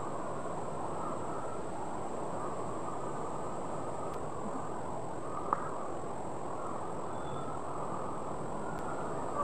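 River water rushing over rocks and small rapids, a steady even rush.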